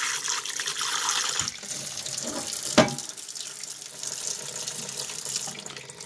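Kitchen sink sprayer hissing as water sprays and splashes into the open plastic compartments of a single-serve coffee maker, flushing it clean. A sharp knock is heard nearly halfway through, and the spray stops near the end.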